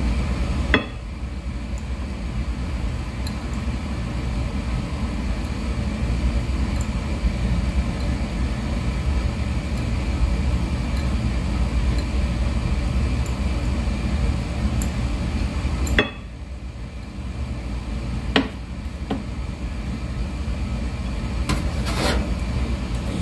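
Steady low background rumble, with a few sharp clicks and light clinks in the last part.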